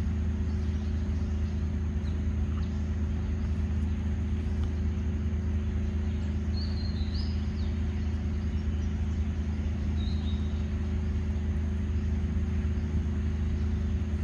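A steady low motor hum runs throughout, with a few short high bird chirps, one cluster about six to seven seconds in and another about ten seconds in.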